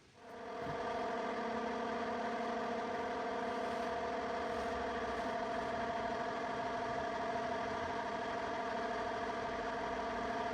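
A machine motor running steadily with an even hum; it fades in over the first second and stops abruptly at the end.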